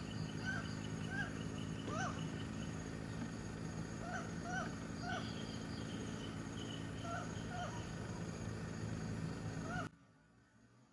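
A series of short, repeated animal calls, roughly one to two a second, over a steady high insect-like buzz and a low hum. All of it cuts off suddenly near the end.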